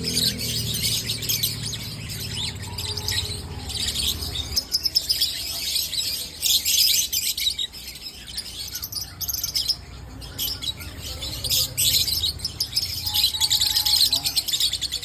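A flock of songbirds kept for breeding chirping and calling densely together, many high-pitched chirps overlapping without a break.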